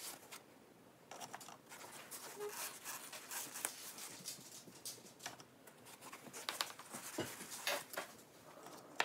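Faint rustling and light scraping of a foam egg-shipping insert being handled, with scattered soft clicks as quail eggs are moved about in it.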